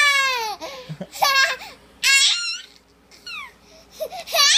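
A baby laughing in a string of high-pitched bursts: a long falling squeal at the start, then about four shorter laughs.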